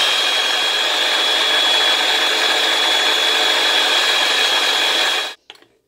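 Ninja Precision food processor's motor running at full speed with a steady high whine as the chopping blade purées chickpeas into hummus, stopping suddenly near the end.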